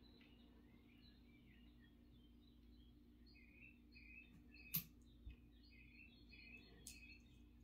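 Near silence: faint, short bird chirps repeat through the middle, and there are two sharp clicks, the louder one a little past halfway.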